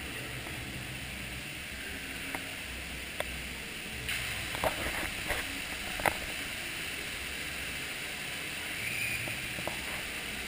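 Steady hiss and low rumble of a boat ride's water and machinery, with a few short sharp clicks or knocks. A brighter hiss joins about four seconds in.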